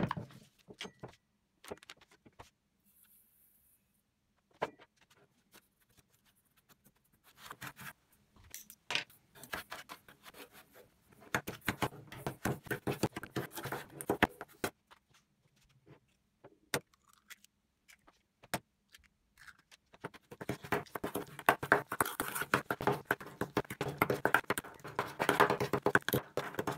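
Metal spoon clinking and scraping against an enamel bowl while mashing and stirring a lumpy cookie mixture, in two long spells of rapid strokes in the middle and second half. Near the start, a few separate knocks and clicks.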